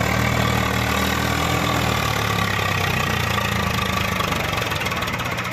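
Swaraj 744 tractor's three-cylinder diesel engine running steadily under heavy load, pulling a fully loaded sand trolley.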